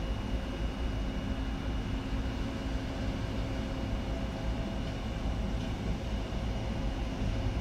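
Airbus A320 jet engines running at idle as the airliner taxis in: a steady low rumble with a constant high whine.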